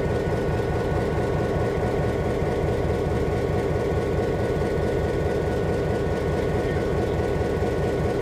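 EMD SD-9 diesel-electric locomotive's 16-cylinder engine running steadily with a deep rumble and a faint steady whine.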